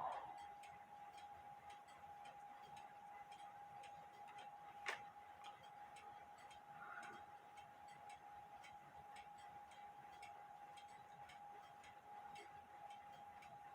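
Faint, steady ticking of a mechanical clock over a constant faint high hum, with one sharper click about five seconds in.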